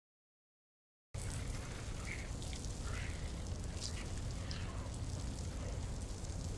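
About a second of dead silence, then faint outdoor beach ambience: a steady low rumble with a few brief, faint high chirps and ticks scattered through it.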